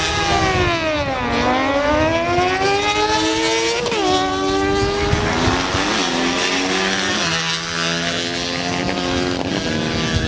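Small-displacement drag motorcycles accelerating hard down the strip at full throttle. The engine pitch climbs through each gear and drops sharply at the shifts.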